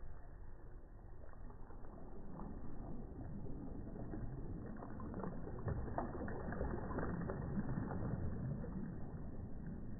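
Small waves breaking softly close by: one wash of water builds over several seconds, peaks past the middle with a crackling fizz, then eases back.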